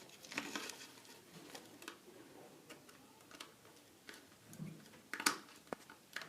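Faint, irregular clicks and taps of a wire being handled and fastened to a light switch's terminal, with a couple of sharper clicks near the end.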